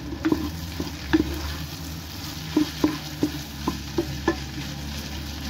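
Wooden spoon stirring sautéing bulgur in a pot, knocking and scraping against the pot about eight times, over a light sizzle of the frying mixture.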